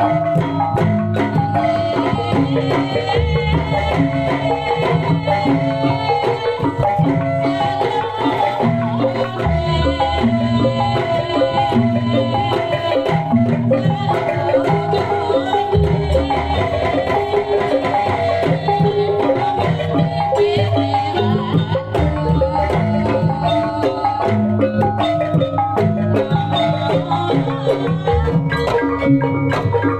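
Javanese gamelan music for kuda lumping: metallophones ringing out a dense, continuous melody over a drum pattern, loud and steady.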